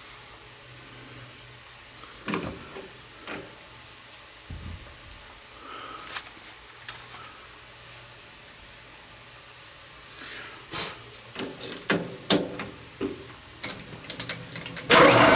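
Scattered clicks and knocks of metal tools and parts being handled, coming thicker toward the end. Then, near the end, a metal lathe starts abruptly and runs loud and steady, with its gearing whining.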